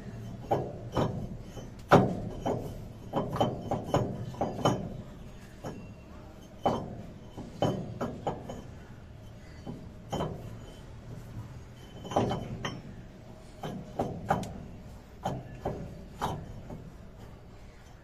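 Irregular clinks and knocks of metal parts handled by hand at the ram assembly of a Schwing Stetter SP-1807 concrete pump during a ram change, with the sharpest knock about two seconds in.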